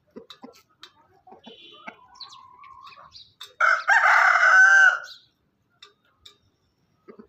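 A rooster crowing once, loud and about a second and a half long, the call dropping in pitch at its end. Faint clucking comes before it.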